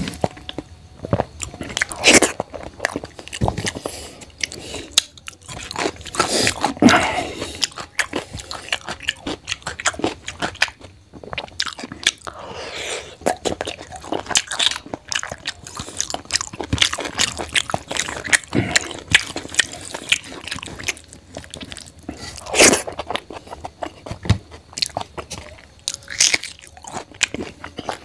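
Close-miked eating: a person chewing mouthfuls of rice and egg curry eaten by hand, with many short, irregular mouth clicks.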